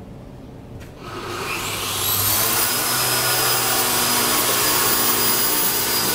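Electric motor of a PFT Boardmaster XL plasterboard V-groove milling machine starting up about a second in: its whine rises in pitch over a second or so, then it runs steadily at full speed with a loud, even high whine.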